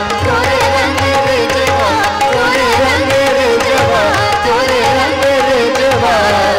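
A woman singing a devotional song in an ornamented, wavering melody, accompanied by harmonium and a steady tabla rhythm.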